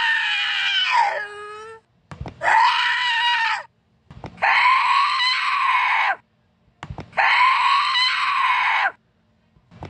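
A female voice screaming four times in long, high-pitched cries of a second and a half to two seconds each, with short pauses between.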